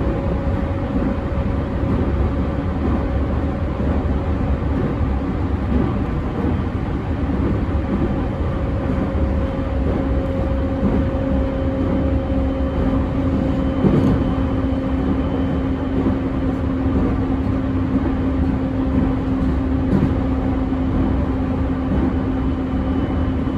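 Running sound inside a motor car of an unrefurbished JR E231-1000 series commuter train: rumbling wheel-and-rail noise under steady hums from the traction motors and inverter, with a single knock about halfway through. A second, lower hum comes in about ten seconds in. This car's motor growl is stronger and lower than usual.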